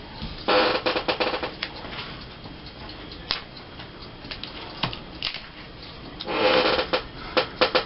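Paper and small craft pieces being handled on a tabletop: a burst of rustling and crinkling about half a second in and another near the end, with scattered light clicks and taps between them.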